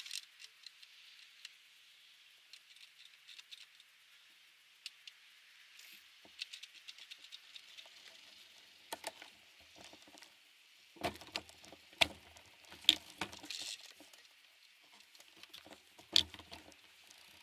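Faint hiss with scattered light clicks and rattles. A few louder, dull knocks come from about eleven seconds in and again near the end.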